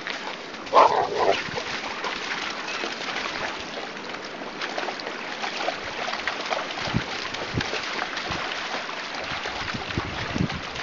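A rottweiler barks about a second in, the loudest sound here, over the steady rush of a shallow stream and splashing as the dogs wade through it.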